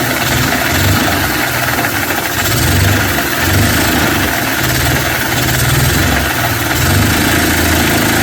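Vacuum cleaner running with a steady, loud rushing hiss, driving LEGO vacuum-powered engines whose running adds a low pulsing rumble that surges and eases every second or so.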